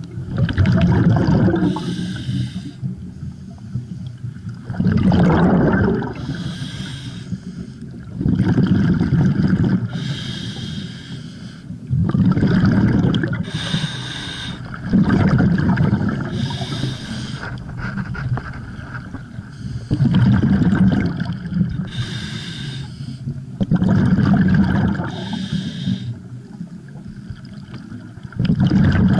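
Scuba diver breathing through a regulator underwater: a steady cycle of a hissing inhale through the demand valve followed by a louder, bubbling exhale, about one breath every four seconds.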